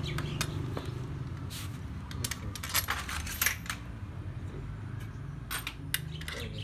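Small metal parts and tools clinking and clattering as they are handled, in scattered sharp clicks with a brief metallic ring, over a steady low hum.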